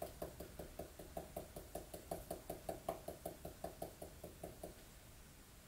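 Dip pen nib tapping rapidly on paper while stippling, about five light ticks a second, stopping near the end.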